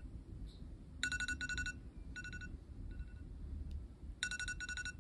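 Electronic alarm beeping in quick runs of rapid high beeps. Two or three runs come close together, then a pause of about two seconds, and the pattern repeats.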